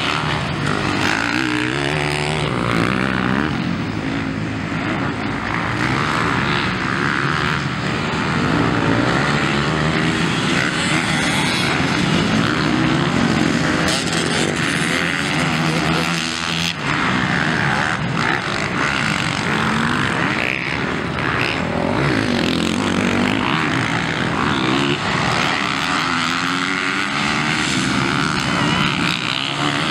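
Several motocross dirt bikes racing on a dirt track, their engines revving up and down in rising and falling whines as they accelerate, shift and pass close by.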